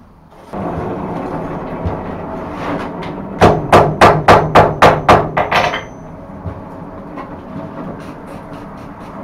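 Hand hammer striking a glowing forge-welding heat of scrap steel and wrought iron on the anvil: a quick run of about nine ringing blows, some four a second, over a steady rushing noise that starts about half a second in.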